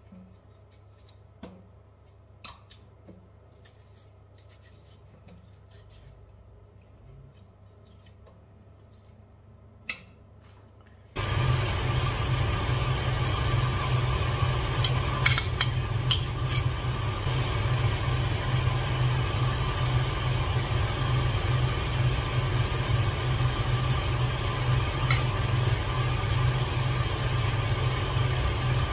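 Light clicks and taps of kitchen utensils, then about eleven seconds in a steady electric appliance motor hum starts suddenly and keeps running, with a few clicks partway through.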